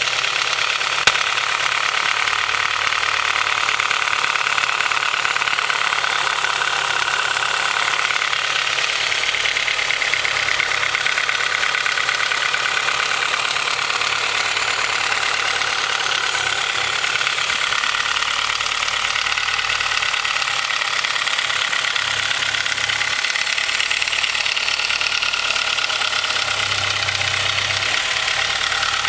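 Cold Honda H22 four-cylinder engine idling with a steady, rapid knocking from piston slap: the Mahle Gold Series pistons have slightly too loose piston-to-wall clearance. A single sharp click sounds about a second in.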